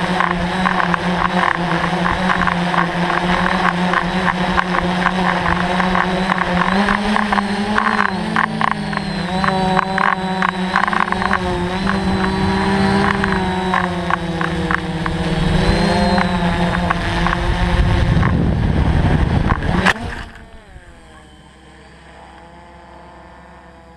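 DJI Flamewheel F550 hexacopter's electric motors and propellers buzzing steadily, the pitch wavering up and down as the throttle changes and growing louder toward the end. About twenty seconds in, a sharp knock as the onboard camera falls off and hits the ground, after which the drone is heard only faintly.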